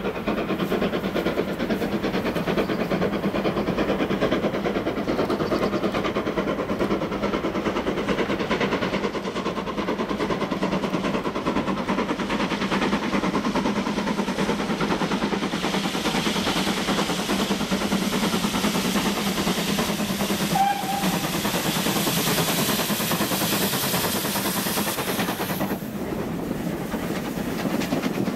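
GWR Collett 0-6-0 steam locomotive running under steam as it approaches and passes close by, with more steam hiss as it goes underneath, then its coaches rolling past on the rails.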